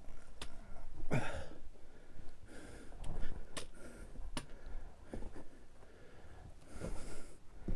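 A person breathing hard, a few heavy breaths spaced a second or more apart, winded from a steep climb. Scattered sharp clicks run between the breaths.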